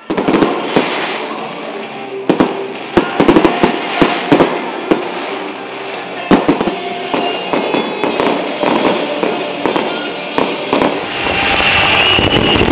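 Fireworks display: shells bursting in irregular, sharp bangs, many close together, over a continuous background of music. Near the end the sound grows steadier and louder.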